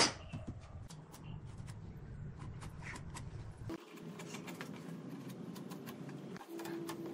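A sharp knock, then scattered light clicks and rustling over a low, uneven background noise; a steady tone comes in near the end.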